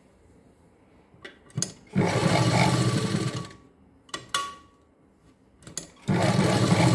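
Sewing machine stitching in two short runs of about a second and a half each, one about two seconds in and one near the end, with a few clicks of handling between them. These are short seams with the needle left down and the fabric turned between runs, stitching the ends of a blouse's hook strip.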